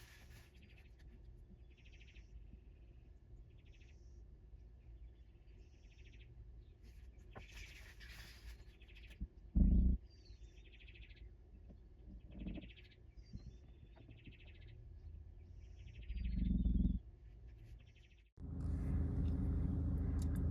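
A bird chirping in short repeated calls about once a second, with two brief low rumbling bursts midway. Near the end a steady hum starts abruptly.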